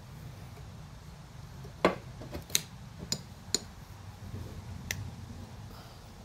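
Sharp small metallic clicks, about five in three seconds with the first the loudest, as a piston ring is worked by hand into its groove on a Honda GX390 piston.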